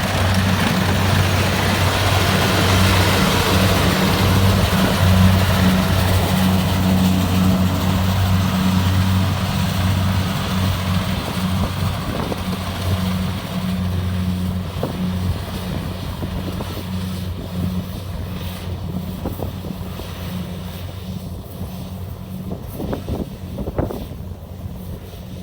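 Kubota DC-70 Plus combine harvester's diesel engine running steadily with a low hum and a broad mechanical rush, growing gradually fainter over the second half. A few sharp knocks come near the end.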